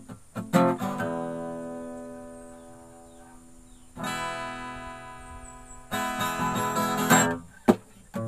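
Background music on acoustic guitar: strummed chords that ring out and slowly fade, with a quicker run of strums near the end.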